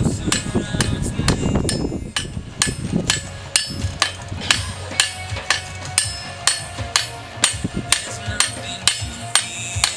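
Blacksmith's hammer striking hot iron on an anvil in a steady rhythm of about two blows a second, each blow ringing, while forging a square spike nail.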